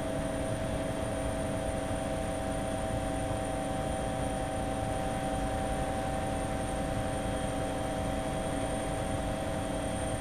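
Steady aircraft engine drone: a low rumble with several constant whining tones that stay unchanged throughout.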